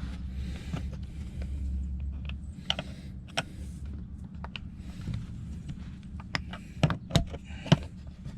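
Scattered clicks and taps of hard plastic being worked at by hand as a rear-seat latch release handle is pried from its housing, with a few sharper clicks about three-quarters of the way through.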